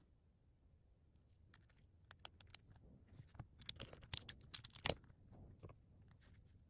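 Faint, sharp plastic clicks and snaps as a GAN 356 XS speed cube's center cap is pressed onto its core, along with plastic handling of the cube. The clicks come in a cluster from about two seconds in, the loudest near five seconds.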